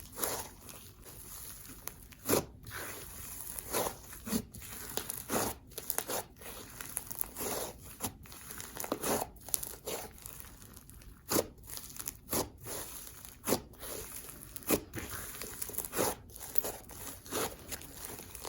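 Slime being squeezed, poked and stretched by hand, giving short crackling, crunching bursts about once a second at an uneven pace.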